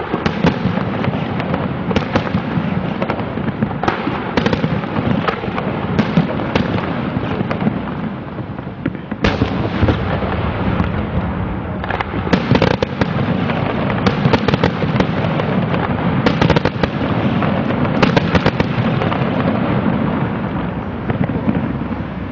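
Aerial fireworks shells bursting in a rapid barrage: many sharp bangs over a continuous din. There is a short lull about nine seconds in, broken by a loud bang.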